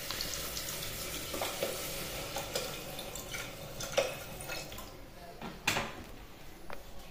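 Water poured from a plastic bottle into an aluminium pressure cooker of rice and masala, a steady splashing pour that stops about two-thirds of the way through. A few small clicks follow near the end.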